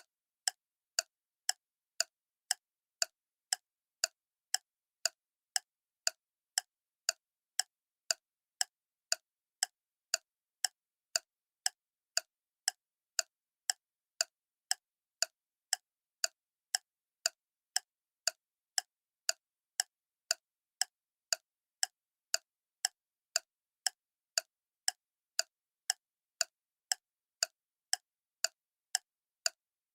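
Clock ticking steadily, about two sharp ticks a second, with nothing heard between the ticks.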